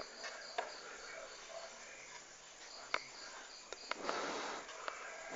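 Faint cricket chirping as short high pips in two spells, with a few soft clicks.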